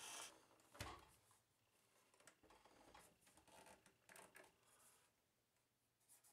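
Near silence: room tone, with a faint knock about a second in and light handling sounds as a cassette portastudio is moved about on a rubber bench mat.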